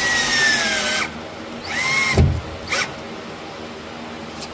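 Cordless drill driving a screw into a wooden headliner bow, its motor whine sagging slightly in pitch before it stops about a second in. Two short trigger bursts of the drill follow, the first with a low knock.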